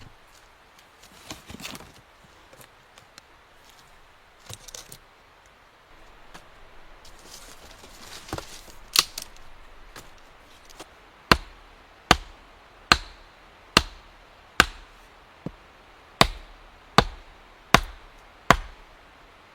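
Wood being chopped with a blade, probably an axe or hatchet: soft rustling and a few scattered knocks, then a steady run of about ten sharp strikes, a little under one a second, from about eleven seconds in.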